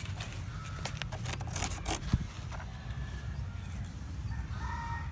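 Short scraping and clicking sounds of hands at work on a portable sawmill during measuring and setting, with a sharp knock about two seconds in, over a low steady rumble.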